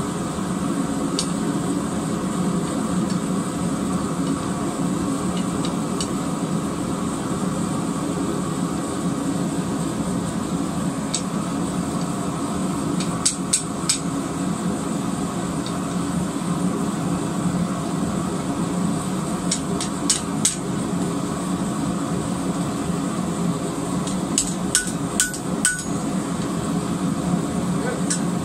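A hand hammer striking a steel bar on an anvil. There are a few scattered blows early on, then short clusters of three to five blows around the middle and towards the end. A loud, steady drone runs underneath throughout.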